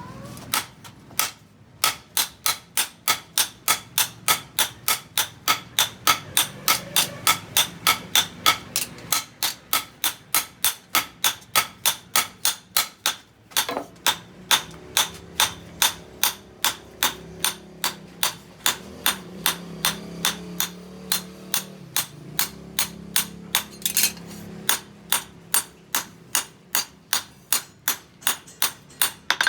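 Hand hammer striking steel on an anvil in a fast, even rhythm of about three ringing blows a second, with a brief pause about halfway through.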